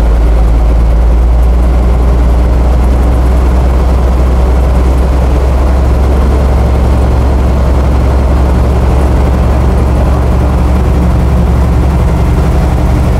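Straight truck's engine running steadily at raised revs, about 1,200 to 1,300 RPM, heard from inside the cab with the accelerator held down to build up air brake pressure faster.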